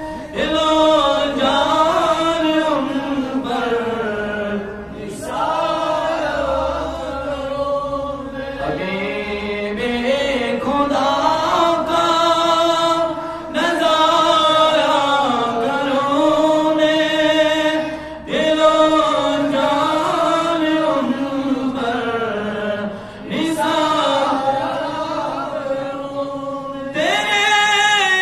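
A man's solo unaccompanied voice chanting an Urdu naat, a devotional poem, in long drawn-out melodic phrases with a wavering pitch, each held for several seconds with short pauses for breath between them.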